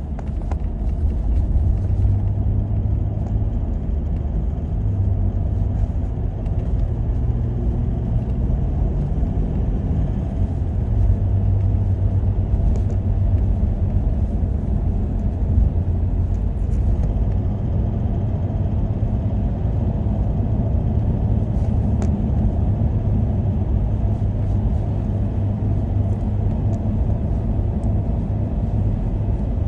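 Toyota 1VD-FTV 4.5-litre V8 diesel engine running steadily with a ticking noise of unknown cause, which the owner is trying to track down.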